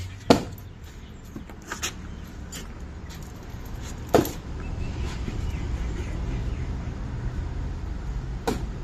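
A few sharp knocks over a steady low rumble: the two loudest about a second in and about four seconds in, a fainter pair near two seconds, and another near the end.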